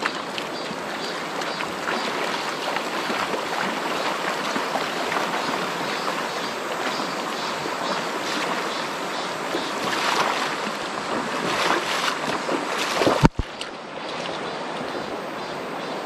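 Mountain valley stream rushing steadily. About 13 seconds in there is a sudden knock and a break, after which the rushing carries on.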